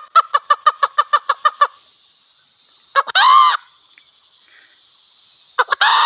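Wild junglefowl hen and cock calling: a quick run of about a dozen clucks, about seven a second, then two short calls a couple of seconds apart, each one or two brief notes followed by a longer call.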